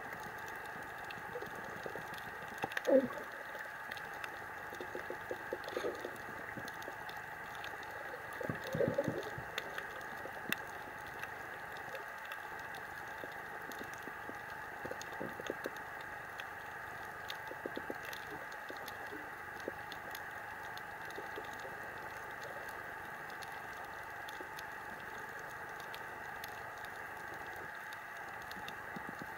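Underwater coral reef ambience picked up by a submerged camera: a steady hiss with scattered faint crackling clicks. A brief low sound that falls in pitch comes about three seconds in, and a short cluster of low knocks around nine seconds in.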